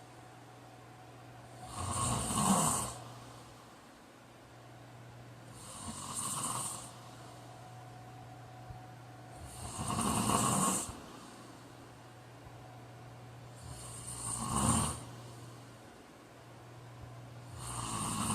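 A man snoring in his sleep, one snore about every four seconds, each lasting about a second. A steady low hum runs underneath.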